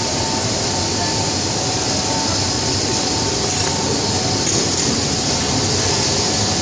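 Steady machinery noise of a running snack-food production line, including a three-layer belt dryer's fans and conveyor drive motors: a dense constant hum with a steady high whine over it.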